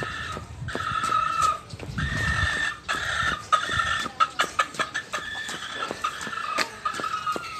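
Chickens clucking in a run of short calls, with footsteps tapping underneath.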